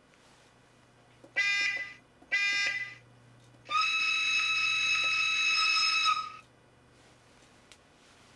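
Diesel-locomotive horn from the DCC sound decoder of a Minitrix N-scale Krauss-Maffei V300 model, played through its tiny onboard speaker: two short toots, then one long, higher-pitched blast of about two and a half seconds.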